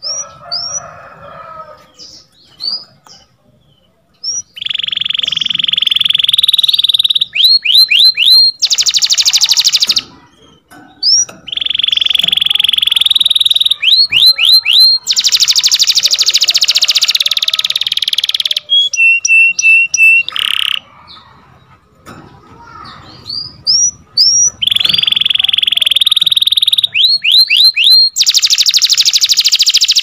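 Domestic canary singing loudly in long phrases with short pauses. The phrases mix quick rising chirps, long even rolling trills, runs of sweeping notes and very fast high buzzy trills.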